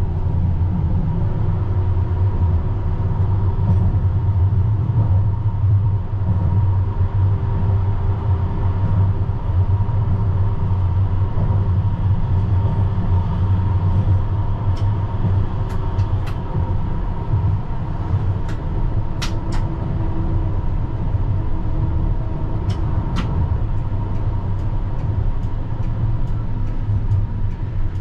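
CAF Urbos 100 tram running along street track: a steady low rumble of wheels on rail with a thin steady whine. A few sharp clicks come about halfway through.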